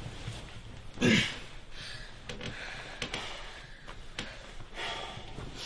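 A person lets out one heavy sigh about a second in, followed by quieter breathing and small movements.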